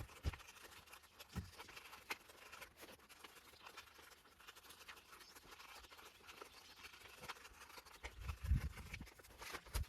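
Blade cutting a strip of anti-squeak tape, a faint scratchy scraping with small clicks, and a few low handling bumps near the start and toward the end.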